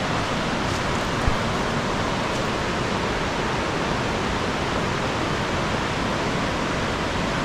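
Steady rush of fast-flowing whitewater, with one short soft knock about a second in.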